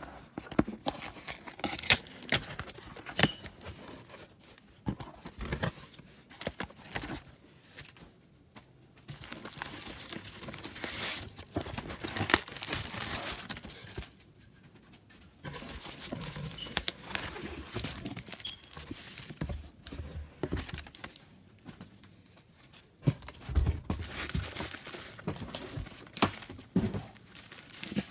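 Hands unwrapping and handling packaging: crinkling and tearing, in stretches broken by sharp clicks and small knocks, with short pauses between.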